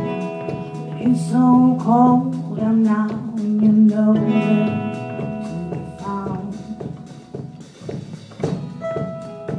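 Live band playing a song: electric and acoustic guitars over bass and drums, with a lead melody whose notes bend and waver.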